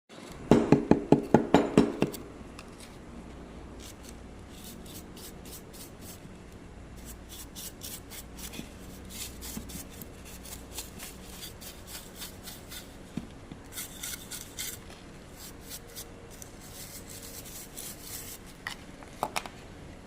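Agarwood piece being handled and worked: a quick run of about eight loud knocks in the first two seconds, then light scraping, rubbing and small clicks, with two sharper knocks near the end.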